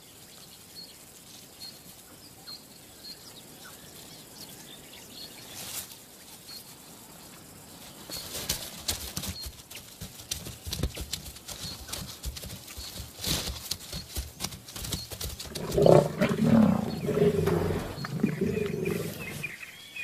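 Lions growling over a kill, loudest about three seconds before the end, after scuffling and crackling noises from about eight seconds in; the opening stretch is quiet apart from a faint repeated chirp.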